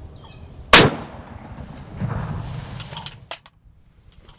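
A single shotgun shot at turkeys, loud and sharp with a short echo, about three-quarters of a second in, followed by a stretch of low noise and a single click.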